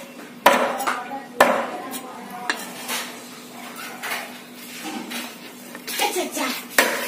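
Cleaver chopping softshell turtle meat on a hard chopping surface: sharp, irregular knocks roughly a second apart.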